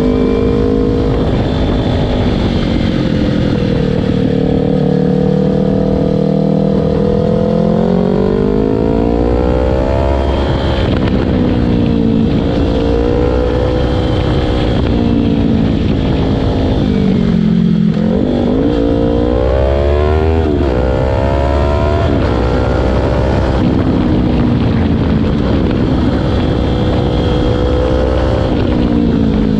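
Yamaha R3's parallel-twin engine breathing through an Akrapovic aftermarket muffler, running as the bike is ridden. Its pitch rises and falls with throttle and gear changes, dipping sharply and then climbing steeply a little past the middle.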